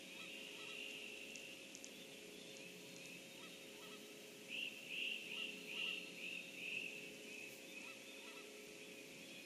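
Wild birds singing in the background over a steady faint hum. About halfway through, one bird close by gives a quick run of about seven louder calls lasting some two seconds.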